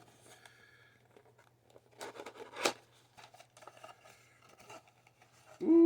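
Cardboard card box and its wrapping being opened: scattered faint rustles, a short scraping tear about two seconds in that ends in a sharp snap, then more light rustling, over a steady low hum.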